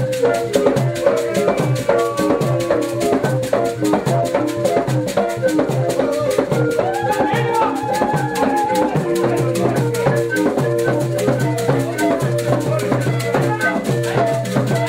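Background music with a quick, steady rattle beat, a bass line and a repeating melody; a longer held melodic note comes in about halfway through.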